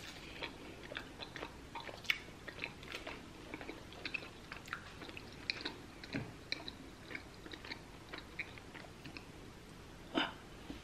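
A person chewing gum close to the microphone: a run of soft, irregular wet mouth clicks and smacks, with a slightly louder one near the end.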